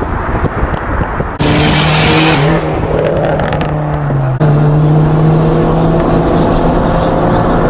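A car engine running at a steady speed with an even hum, its pitch sagging slightly and then jumping back. It cuts in abruptly after a second and a half of rushing noise.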